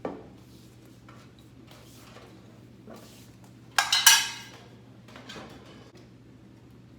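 Clear plastic sneeze-guard panels and their brackets being handled and set down on a table, with light knocks and one loud clatter about four seconds in.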